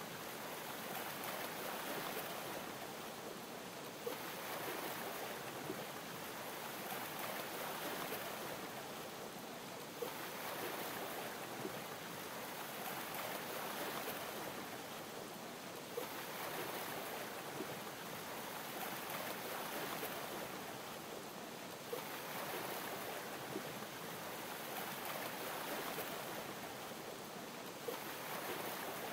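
Gentle waves lapping against a yacht's hull: a steady wash of water that swells and eases about every six seconds, with a faint tick at each swell and small scattered pops.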